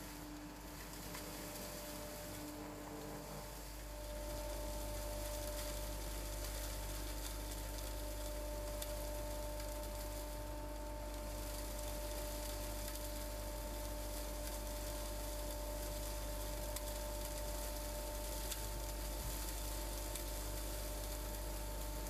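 Vacuum cleaner running, its hose sucking up loose hay and dust: a steady motor hum with an even rushing hiss. About four seconds in it gets louder and its tone shifts higher.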